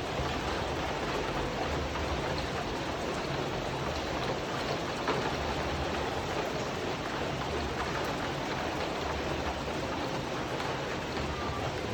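Steady rain drumming on a tin roof, a dense even patter without a break.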